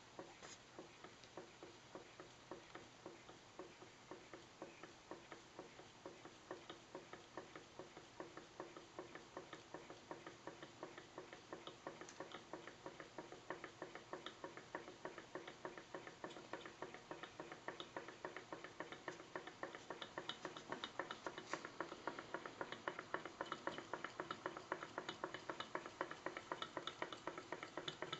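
Model hot air engine running on its burner flame, its moving parts making a faint, rapid, even ticking that grows louder over the second half.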